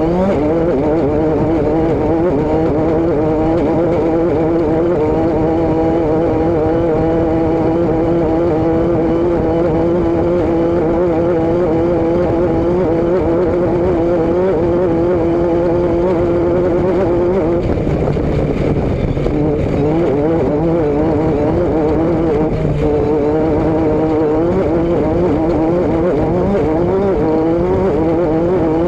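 A vehicle's engine and exhaust running continuously at a steady note that wavers slightly. About eighteen seconds in the note drops and changes, then returns to its earlier pitch about five seconds later.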